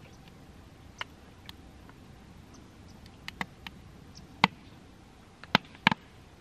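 Wood fire in a steel burn barrel crackling: a handful of sharp, irregular pops, the loudest about two-thirds of the way through and two more close together near the end.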